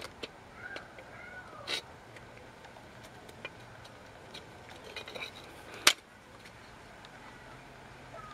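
Metal clicks and clinks of groove-lock pliers gripping and working the parking-brake lever off a steel rear drum brake shoe, with one sharp metallic snap about six seconds in. A faint high squeak slides up and down around the first second.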